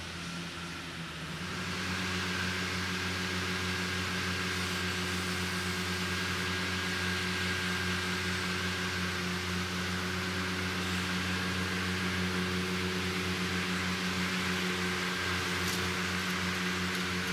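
Ventrac ET200 turbine blowers running at working speed: a steady rush of air over the hum of the tractors' engines, growing louder about a second and a half in and then holding steady.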